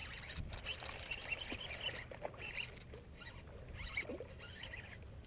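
A baitcasting reel being cranked in irregular spells while a hooked largemouth bass is fought toward the bank, with small splashes at the surface.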